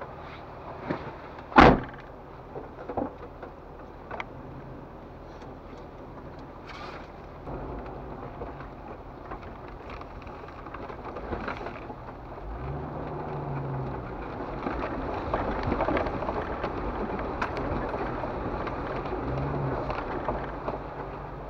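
4x4 vehicle crawling slowly over a rocky trail, heard from inside the cab: its engine runs low and steady, with a sharp clunk about a second and a half in and a few lighter knocks. Later the engine revs up briefly twice as the vehicle drives through a creek, and water splashes and rushes around the tyres.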